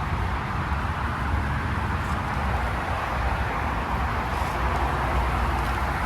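Outdoor air conditioner condenser unit running: steady rushing airflow from the condenser fan over a low, constant hum.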